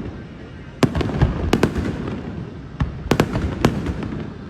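Aerial fireworks bursting: sharp bangs in quick clusters, starting about a second in and again around three seconds, over a continuous low rumble of further bursts.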